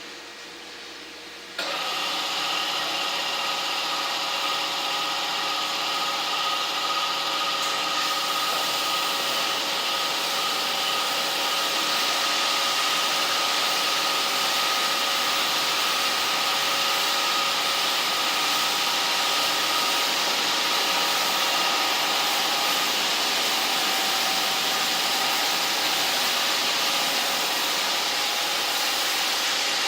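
Automatic rollover car wash machine running: a steady hiss with several steady motor tones, starting abruptly about a second and a half in.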